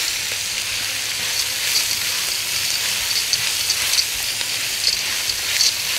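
Small-cut meat and vegetables with browned pasta sautéing in hot oil for a soup: a steady sizzle with small crackles.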